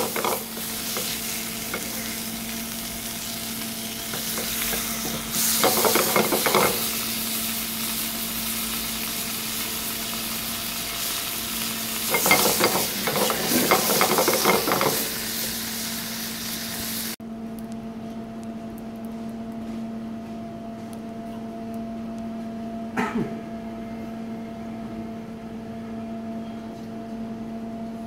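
Sea bream fillets sizzling in a frying pan, with a wooden spatula scraping and shifting them in two louder spells. The sizzle cuts off suddenly about two-thirds of the way through, leaving a steady hum and one short knock.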